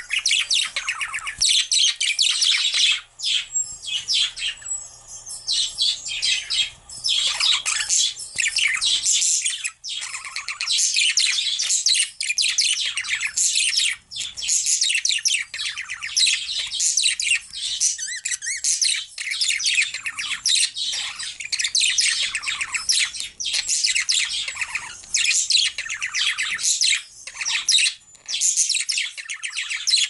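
Budgerigars warbling and chattering: a fast, nearly unbroken stream of high chirps and clicks with only brief pauses.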